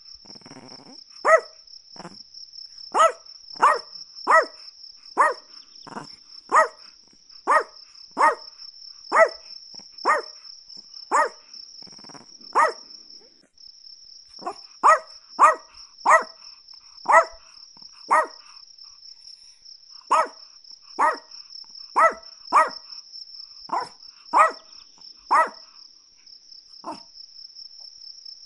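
Chihuahua barking: a long run of short, high barks at about one a second, with a pause of about two seconds midway, ending shortly before the close. A steady high cricket trill runs underneath throughout.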